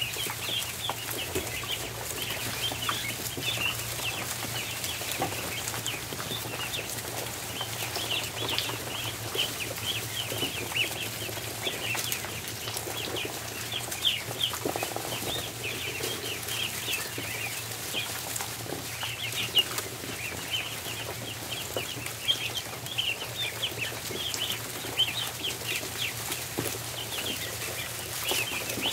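A flock of ducklings peeping continuously, many short high peeps overlapping, with scattered small ticks and knocks, over a steady low hum.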